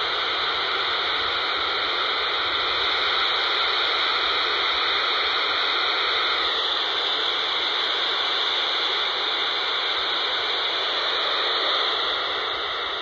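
An unidentified data signal on 29.800 MHz FM, heard as a steady, unbroken hiss through a handheld scanner's speaker. It is a VHF low-band skip signal that is taken for a paging system or data link.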